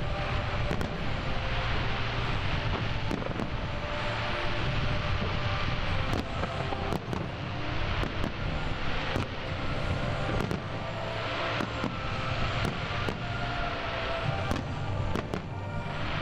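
A fireworks display: shells and comets bursting in an irregular string of sharp bangs and crackles over a continuous rumbling wash of noise.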